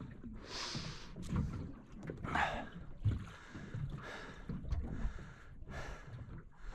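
Water lapping and splashing around a small drifting boat, with wind on the microphone: a low steady rumble broken by short irregular bursts of hiss.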